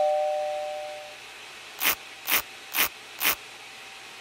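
A two-note chime fades over the first second. Then a bristle brush makes four quick sweeps, about two a second, brushing milling dust out of the dental milling machine's spindle holder.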